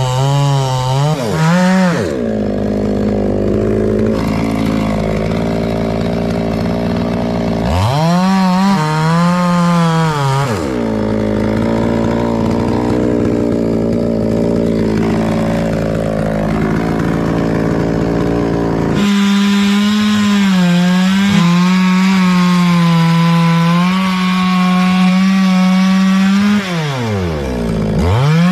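Two-stroke chainsaw running at high revs, cutting into jackfruit wood. Its engine note dips and picks up again three times: about two seconds in, around eight to ten seconds, and near the end.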